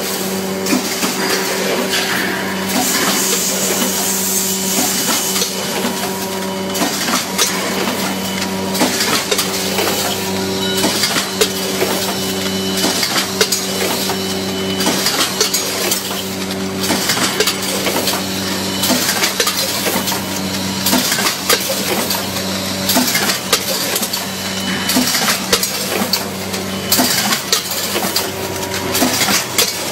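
Packaging machine running: a steady motor hum under continual irregular clicking and clattering of its mechanism.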